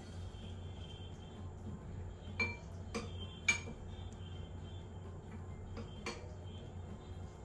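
Metal spoon clinking against a glass bowl while stirring a thick powdery paste of besan and oats. Light scattered clinks, three close together about a third of the way in and one more near the end.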